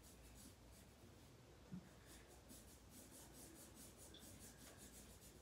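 Faint rub and squeak of Sharpie markers drawing on bags, in short repeated strokes, with one light tap a little under two seconds in.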